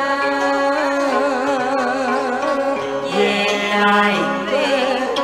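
Karaoke backing music for a Vietnamese cải lương tân cổ song, carrying a melody with a wide, wavering vibrato. A man sings along into a microphone over it.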